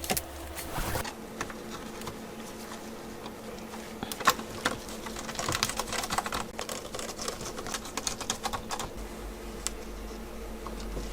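A small motor humming steadily from about a second in, with scattered clicks and taps of small parts being handled.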